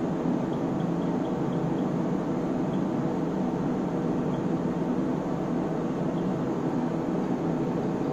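Steady whirring of test-equipment cooling fans. Faint high ticks come several times in the first two seconds and now and then after, as front-panel keys are pressed.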